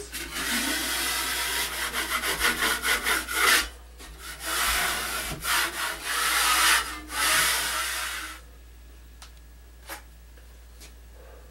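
Steel drywall knife scraping lightly over dried joint compound on a metal corner bead, knocking down the high spots and ridges with quick repeated strokes in several bursts. The scraping stops about eight seconds in, leaving a few faint clicks.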